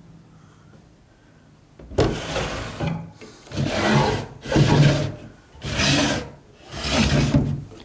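Wooden dresser drawers dragged open and shut, wood scraping on wood in about five strokes that begin about two seconds in.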